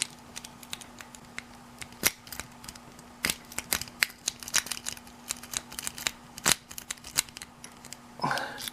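Steel lock pick working the pins of a five-pin Master dimple-key padlock: irregular light metallic clicks and scrapes, with a few sharper clicks.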